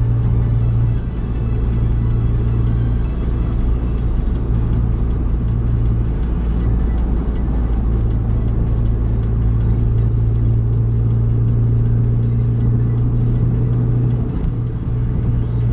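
Honda Fit's four-cylinder engine droning steadily at highway speed, heard from inside the cabin. The engine is held high in the rev range by a shorter 4.928 final drive, at around 3,500 rpm.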